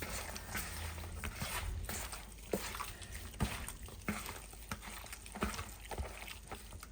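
Gloved hands working seasoning into raw chicken thighs: irregular soft wet squishing with small taps and clicks.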